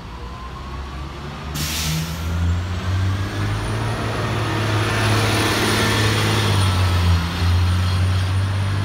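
City transit bus releasing its air brakes with a short hiss about a second and a half in, then pulling away and passing close: the diesel engine builds up with a slowly rising drivetrain whine as it accelerates.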